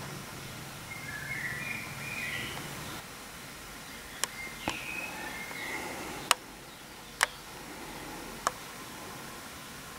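A small bird singing short warbling phrases twice over a steady background hiss, with five sharp clicks in the second half.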